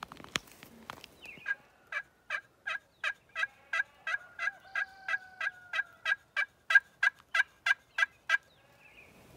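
A pot-style friction turkey call, worked with a wooden striker, gives a long run of about twenty short, evenly spaced yelps, roughly three a second, loudest toward the end. It is hen turkey calling meant to draw a gobble from turkeys on the roost.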